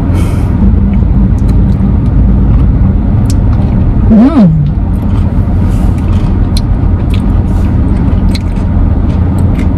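Steady low rumble of a car's interior, engine and cabin noise. A little after four seconds a short hummed 'mm' rises and falls, with small scattered clicks of eating throughout.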